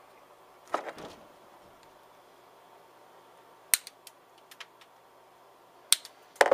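Diagonal cutters snipping off the excess leads of a freshly soldered battery holder on a small circuit board: two loud, sharp snips about two seconds apart, with fainter clicks and handling knocks around them.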